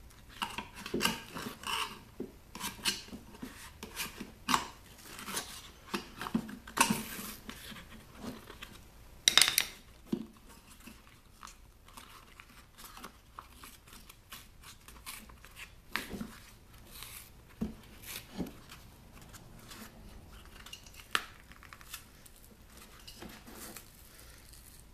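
Irregular metallic clicking and clatter as a removed loudspeaker driver's metal frame is handled and worked at with a screwdriver. The knocks come thick in the first ten seconds, with the loudest about nine seconds in, then grow sparser.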